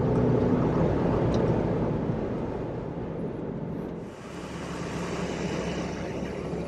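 Pickup truck driving fast over a dry lake bed: steady engine and road noise that fades over the first four seconds, then gives way to a lighter, higher hiss.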